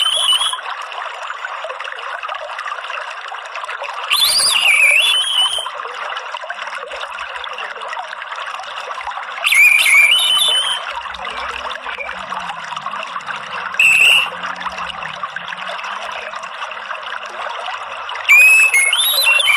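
Orange-headed thrush calls, a short phrase of gliding whistles coming roughly every four to five seconds (one of them briefer), over the steady trickle of running water. It is a lure track meant to set a captive orange-headed thrush singing.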